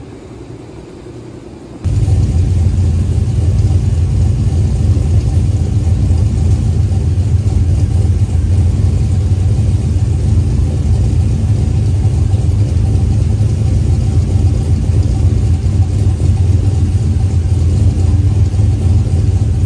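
Turbocharged de-stroked 6.0 LS V8 (6.0 block with 4.8 internals) running at a steady idle with a deep, even rumble. The sound comes in abruptly about two seconds in, over a quieter steady hiss.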